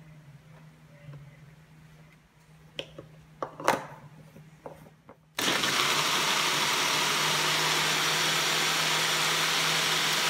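Single-serve personal blender motor running at a steady, even pitch for about five seconds while blending a thick milk-and-oat shake, switching on about halfway through and stopping at the end. A few sharp knocks and clicks come before it starts.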